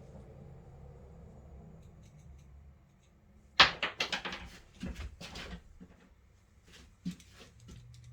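A faint low hum, then a sharp knock about three and a half seconds in, followed by a quick run of clattering knocks for about two seconds and a single click near the end: hard objects being handled and knocked together.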